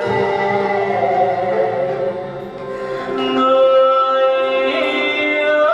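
Traditional Vietnamese music accompanying a water puppet show: a singing voice holds long notes over a small instrumental ensemble, dipping briefly about halfway through and then swelling louder.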